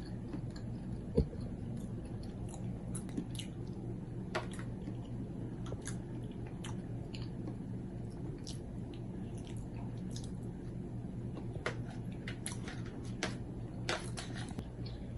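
Chewing and biting Madura-style satay, heard as soft, irregular mouth clicks and smacks over a steady low hum. There is one sharper knock about a second in.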